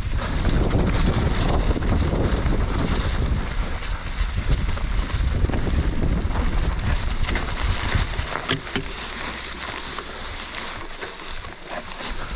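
Wind buffeting the microphone and tyre noise as a mountain bike rides fast down a dirt trail, with a few sharp knocks and rattles from the bike over bumps about two-thirds of the way through.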